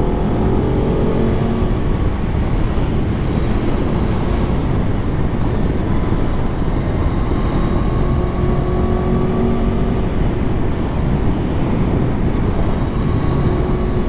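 Aprilia Tuono V4 1100's V4 engine pulling up through the revs in the first second or so, then holding a steady speed under a loud, steady wind rush on the microphone.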